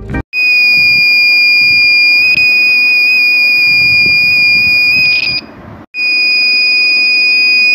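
Piezo buzzer on a homemade breadboard water level indicator sounding one loud, steady, high-pitched tone: the full-tank alarm, set off when the water reaches the sensor wires at the top. The tone breaks off for about half a second around five and a half seconds in, then resumes.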